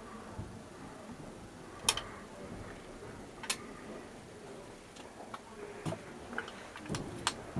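A handful of sharp clicks and taps at irregular intervals, the loudest about two seconds in and several closer together near the end, over faint room noise.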